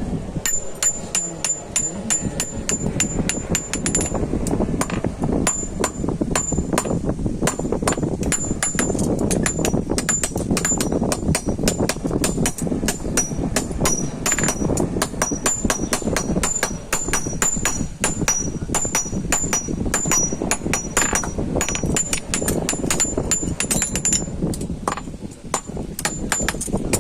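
Rapid hammer blows on iron against an anvil, hand-forging nails, several strikes a second in a steady rhythm. Each strike rings metallically, with a second ringing pitch joining from about the middle onward, over a steady low background noise.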